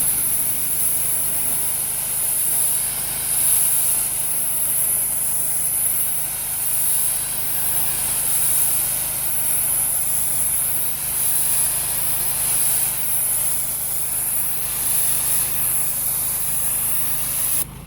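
Pressure washer running at moderate pressure, its motor humming steadily under the hiss of the water jet spraying a brick wall; the spray cuts off suddenly near the end while the machine keeps running.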